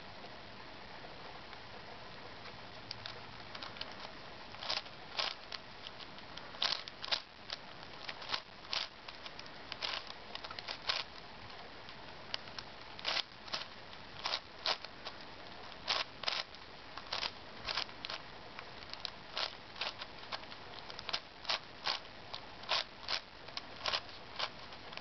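Plastic pieces of a Hexagonal Dipyramid 5x5x5 twisty puzzle (a shape mod of a 5x5x5 cube) clicking and clacking as its layers are turned by hand. The clicks come in irregular quick clusters, starting about three seconds in, over a steady hiss.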